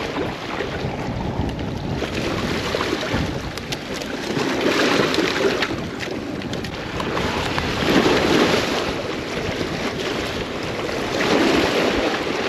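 Wind on the microphone and small bay waves at the shore: a steady rushing noise that swells louder three times.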